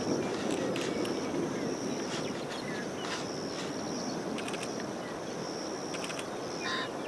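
Steady rushing wind noise outdoors, with a high thin steady tone that breaks off now and then and a few faint clicks.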